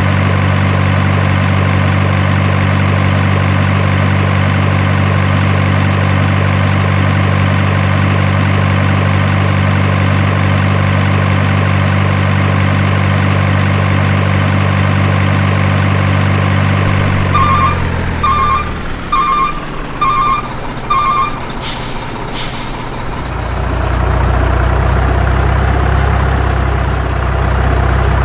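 Truck engine running steadily, then winding down about two-thirds of the way in. Five reversing beeps follow, then two short air-brake hisses, and the engine settles into a lower idle near the end.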